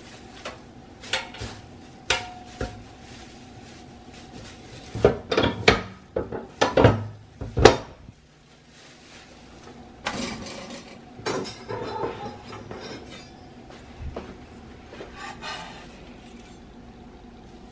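Kitchen clatter: metal utensils and dishes clinking and knocking in scattered short knocks, with a louder run of knocks around the middle.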